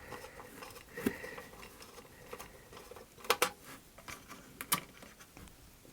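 A screwdriver undoing small screws on a circuit board, heard as a few sharp clicks and light metallic taps with faint ticking between.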